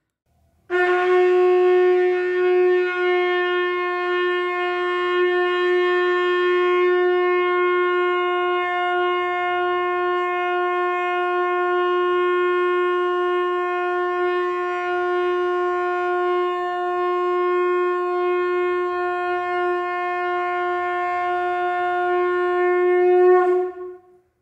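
A single long blast on a blown horn: one steady note held for over twenty seconds, swelling a little near the end before it stops abruptly.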